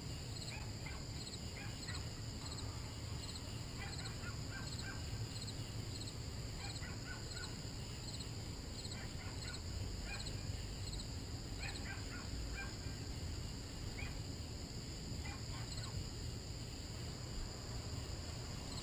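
Crickets chirping steadily in an even, repeating pattern, with a few faint short calls now and then and a low rumble underneath.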